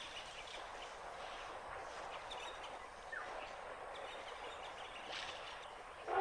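Open-air bush ambience: an even hiss with a few faint bird chirps, one a short rising note about three seconds in.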